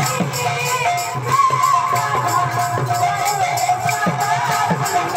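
Live Sambalpuri kirtan music: a strapped barrel drum played with deep strokes that slide down in pitch, small metal percussion keeping a fast steady beat, and a woman singing held, wavering notes through an amplified microphone.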